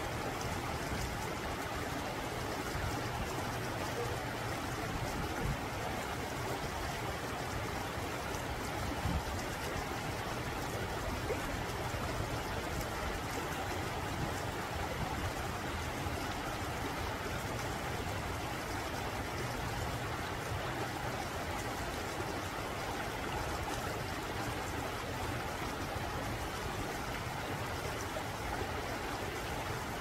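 Shallow rocky mountain stream flowing over and between boulders and small cascades: a steady, unchanging rush and babble of running water.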